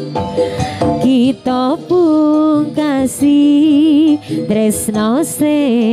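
Live Javanese Jaranan ensemble music: a melody line with a heavy wobble in pitch and quick upward slides, over steady low gong tones and drums, with a few short metallic crashes.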